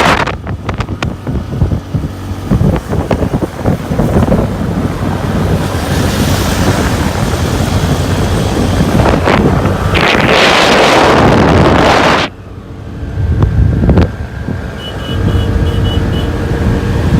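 Motorbike on the move, wind buffeting the microphone over a steady engine and road rumble. A louder rush of wind noise comes near the middle, and a few faint high beeps sound near the end.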